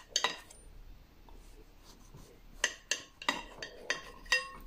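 Metal knife clinking against a cut-glass cake stand while slicing a sponge cake: two light clicks near the start, then a run of about half a dozen short, ringing clinks in the second half.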